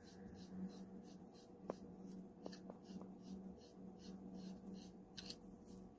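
Near silence with a low steady hum, broken by four faint clicks about two to three seconds in as a .22 pistol is handled at the bench.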